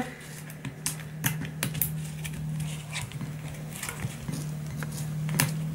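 Scattered light clicks and taps from fingers handling a foil-lidded aluminium tray of wet dog food, over a steady low hum.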